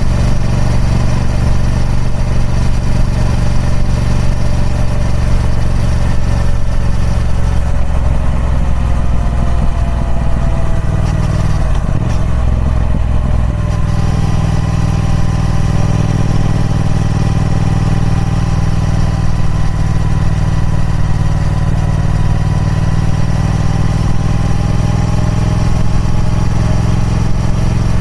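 Triumph Speed Twin 1200's 1200cc parallel-twin engine running through its stock exhaust. The engine note sinks gradually over several seconds, changes briefly around the middle, then holds steady.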